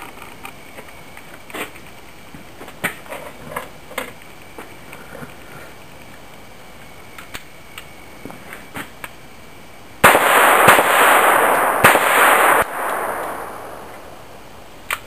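Taurus PT22 .22 LR pistol fired several times in quick succession, about ten seconds in. The shots are loud enough to swamp the microphone into a hiss that fades over a couple of seconds. Before that, only light scattered clicks.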